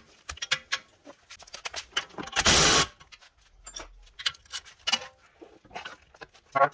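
Wrench working a tight 19 mm ball-joint nut, with scattered metal clicks and ticks, and a short loud burst of noise about two and a half seconds in.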